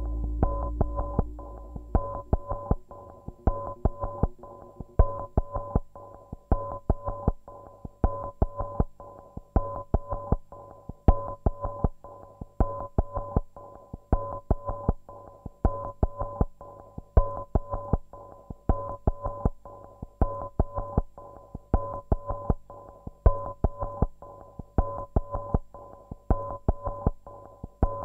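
Minimal electronic music played live: a steady, repeating pattern of sharp clicks and short pulsing synthesizer tones, over a deep low tone that fades away in the first couple of seconds.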